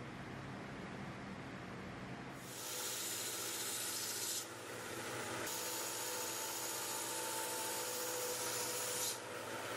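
Belt grinder running with the front of a knife handle and its metal bolster held against the abrasive belt, a steady gritty hiss over the machine's drone. The hiss drops back twice, briefly, as the piece is eased off the belt, while the motor keeps running.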